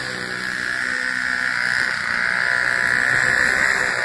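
Small engine of a single-stage snowblower running at a steady buzz, growing slightly louder toward the end.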